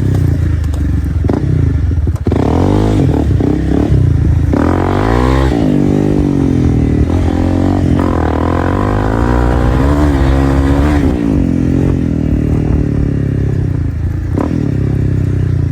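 2025 Honda CRF300L's single-cylinder engine running loud through a straight-piped Dominator exhaust while being ridden, its pitch climbing and dropping several times as the throttle opens and closes.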